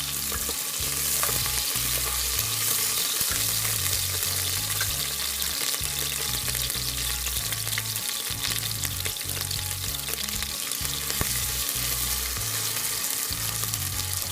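Cubed boiled potatoes and onions sizzling in hot oil in a pressure cooker, stirred with a spatula that scrapes and clicks now and then.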